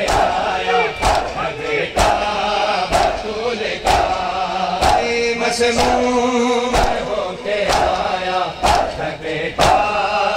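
Crowd of mourners doing matam, beating their chests in unison with a sharp slap about once a second. Men's voices chant a noha between the strikes.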